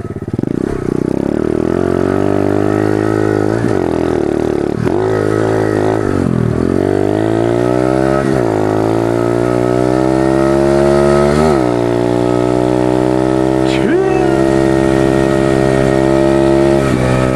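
Pit bike's small single-cylinder engine under way, revving up with a climbing pitch and dropping back sharply several times as the throttle and gears change.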